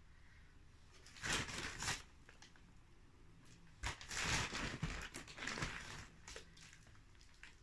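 Potting soil being scooped and poured into a plant pot: two bursts of rustling, crunchy noise, the first about a second long, the second about two seconds, with a few smaller scrapes after.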